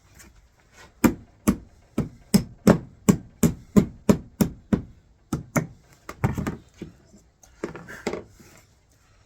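A quick run of about a dozen sharp knocks on wood, roughly two and a half a second, then a few softer knocks and scrapes.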